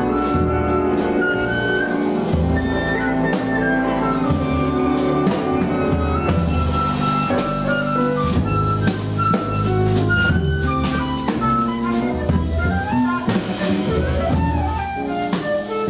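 Live jazz quartet playing a blues: a flute plays a solo melody line over bass and a drum kit.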